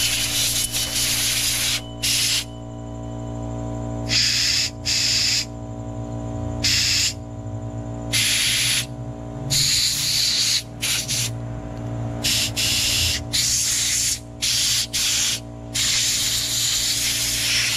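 Compressed-air blow gun blasting air into and through a lawn mower carburetor to clean it out. It comes as about a dozen separate hissing blasts, some short, some a second or two long, over a steady hum.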